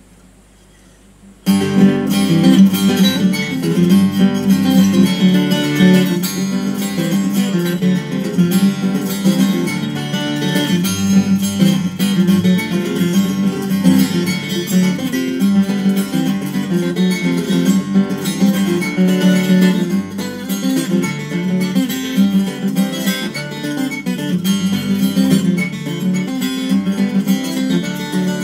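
Twelve-string acoustic guitar played fingerstyle. It starts suddenly about a second and a half in, after a brief quiet, and runs on as a continuous picked instrumental passage.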